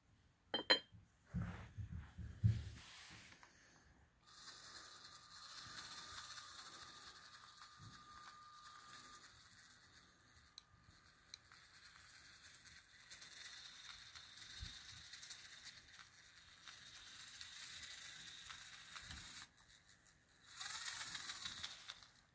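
Cast-iron weight plates clink and thud as they are set down. Then the Lego Technic truck's small electric motor and plastic gearing run with a steady whine for about fifteen seconds while it pulls the weighted trailer, with a louder, harsher stretch near the end.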